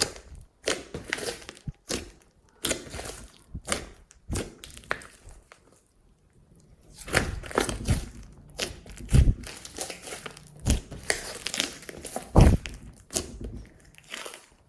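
Hands squishing and kneading slime, making irregular crackly pops and squelches. There is a short pause about five seconds in, then a couple of louder, deeper thuds as the slime is pressed.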